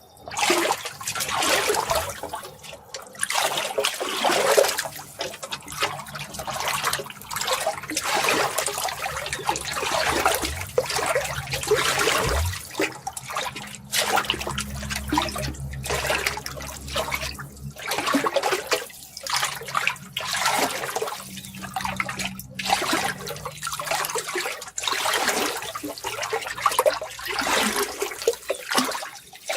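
Running water splashing and gushing in irregular surges, each swelling and falling back within a second or two.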